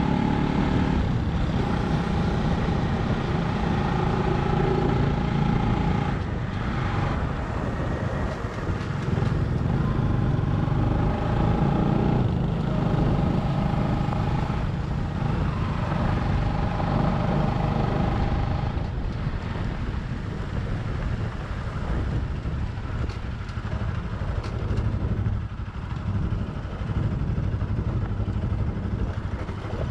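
Motorcycle engine running while riding, with wind and road noise. A steady high whine sounds on and off through the first two-thirds.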